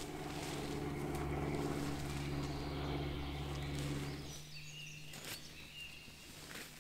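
A steady low engine drone, such as a passing vehicle, that fades away about four seconds in, followed by a few short bird chirps.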